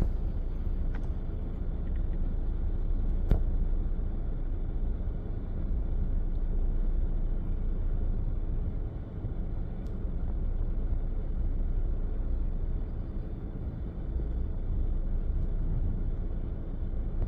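Steady low outdoor rumble with no clear tone in it, and one sharp click about three seconds in.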